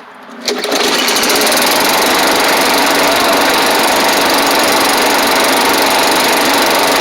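Old lawnmower engine catching about half a second in, then running steadily at a constant speed.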